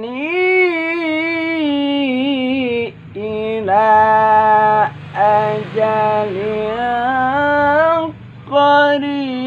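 A man reciting the Qur'an in the melodic tilawah style. He holds long, wavering, ornamented notes in a fairly high voice, with three short pauses for breath between phrases.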